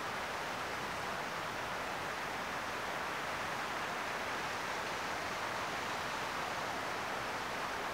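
Steady rushing of a mountain creek's water, an even hiss with no breaks or separate sounds.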